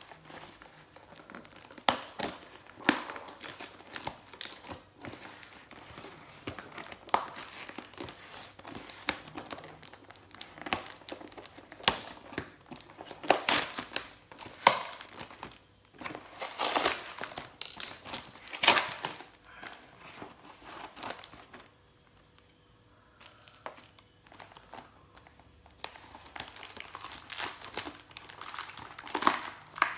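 Plastic wrap and cardboard packaging of a parcel being torn open and crumpled by hand: irregular crinkles and rips, with a short lull about two-thirds of the way through.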